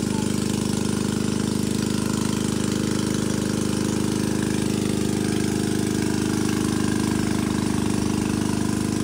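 Small engine running steadily at a constant speed: a fast, even chugging over a deep hum.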